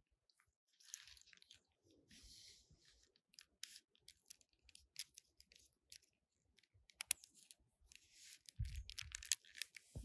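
Thin cord being wrapped and pulled around rough pine bark: soft rustling and scraping with scattered small clicks, a sharper click about seven seconds in, and a soft thump near the end.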